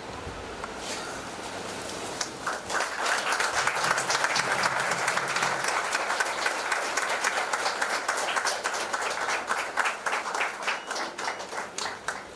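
Audience applauding, a dense patter of clapping that swells about two seconds in and thins out near the end.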